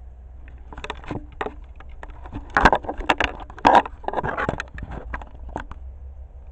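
Rustling, clicking and knocking of things being handled while food is set out, with two louder rustling knocks about two and a half and three and a half seconds in, over a low steady rumble.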